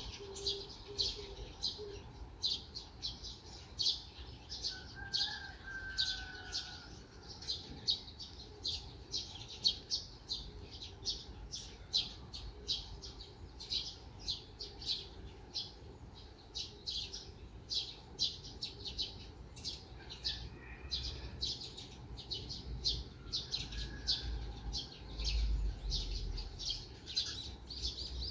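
Small songbirds chirping: many quick, high, short notes in a dense run with calls overlapping.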